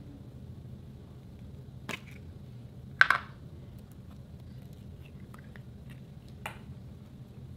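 Green slime squeezed and kneaded by hand, giving a few sharp squelching pops: the loudest about three seconds in, smaller ones about two seconds in and near the end, with faint crackles between them. A low steady hum runs underneath.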